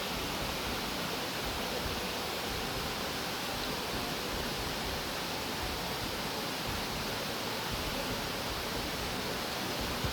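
Steady rush of water pouring over a small waterfall in a creek.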